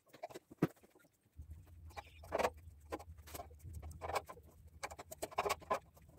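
Quiet, irregular light scratching and small knocks of a steel square and marker being worked along a steel gate tube to mark crossbar positions. A steady low hum comes in about a second and a half in.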